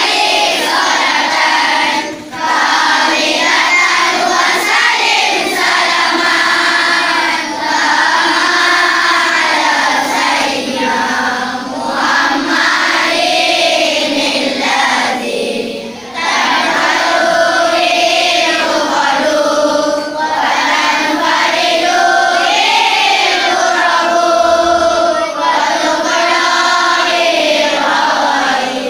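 Large group of schoolchildren singing together in unison, one long song broken only by short pauses between phrases.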